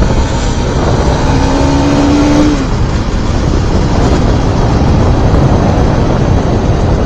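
Heavy wind buffeting on a helmet-mounted action camera's microphone while riding a motorcycle. About a second in, an engine note rises slightly for a second and a half, then sinks back under the wind.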